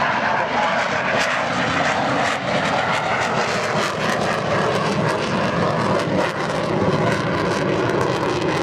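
The twin J79 turbojets of an F-4 Phantom II, flying a slow pass with gear and tail hook down. The jet noise is loud and steady, with rapid crackling through most of it.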